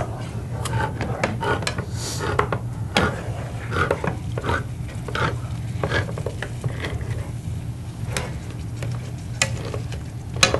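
A plastic slotted spatula stirring and scraping a meat and tomato-sauce mixture around a nonstick frying pan, in irregular strokes and taps against the pan, over a light sizzle. A steady low hum runs underneath.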